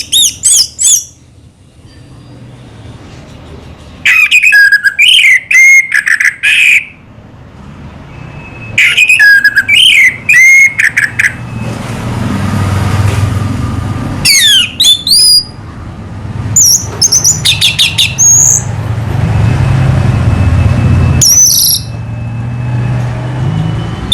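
Orange-headed thrush (anis merah) singing: loud, rich whistled phrases in bursts of one to three seconds with pauses between them. A low rumble fills the gaps.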